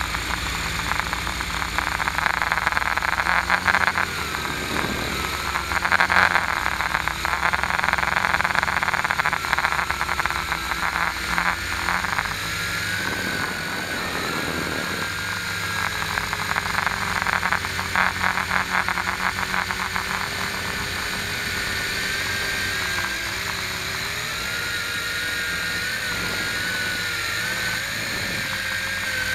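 Motor and propeller of a small radio-controlled aircraft, heard through its onboard camera: a steady whine whose pitch rises and falls as the throttle changes, with wind rushing over the microphone in gusts.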